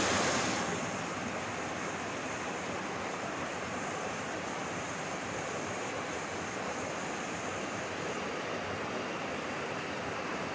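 Steady rushing of a small mountain stream cascading over rocks in a low waterfall, a little louder in the first second.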